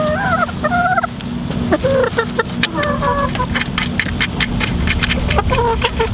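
Chickens clucking close by, with short rising-and-falling calls in several bursts, and a quick run of sharp clicks or taps in the middle. A steady low hum runs underneath.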